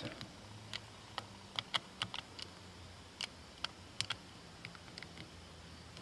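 Scattered light clicks and taps, irregularly spaced, from the plastic housing of an air conditioner's GFCI plug being handled and turned over in the hand.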